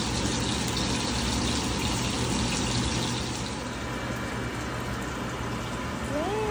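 Steady hissing of a pot of clam soup cooking on an electric stove, with a low hum under it. A short tone that rises and then falls comes in near the end.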